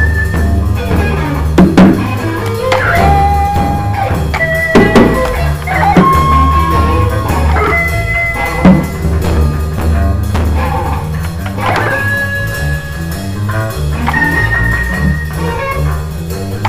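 Band music: a guitar plays long, held lead notes that bend up into pitch, over a steady bass line and drum kit.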